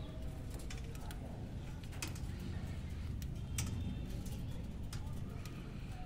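Budgerigars chirping softly over a low steady rumble, with sharp clicks about two seconds and three and a half seconds in.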